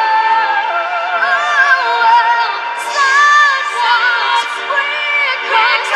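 Female vocal group singing a slow ballad in close harmony, several voices holding and gliding between notes together.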